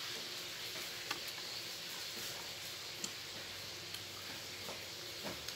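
Steady low hiss of a quiet room, with about five faint, scattered clicks and small taps.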